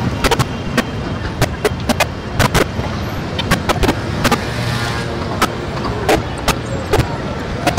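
Glitchy electronic noise: irregular sharp clicks and crackles scattered through a steady low hum and hiss, with a brief rise of high hiss about four and a half seconds in.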